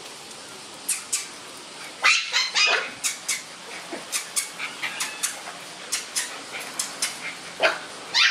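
Shiba Inu puppies yipping and barking in play: short, high, sharp calls, a first pair about a second in, then coming in quick runs from about two seconds on.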